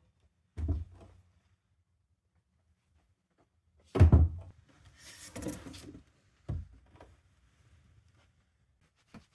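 A few separate thuds and knocks, the loudest about four seconds in, followed by about a second of scraping or rustling, then another thud and a small tick near the end.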